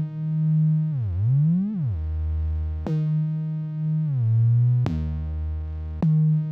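Synthesizer sub-bass from Arturia's Trap Drop pack, played in Pigments: a held trap bass line whose notes glide down and back up in pitch, with each new note starting with a click.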